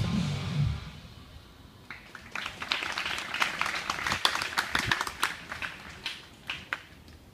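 Guitar backing music cuts off about a second in; then a small audience claps in scattered, irregular claps for about five seconds, thinning out near the end.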